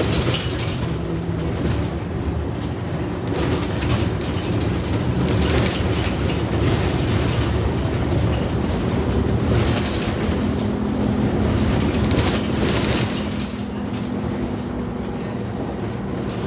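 Inside a moving single bus: the engine and drivetrain run with a steady drone whose pitch shifts about two thirds of the way through, over body rattle and road noise. Short bursts of high hiss or rattle come four times.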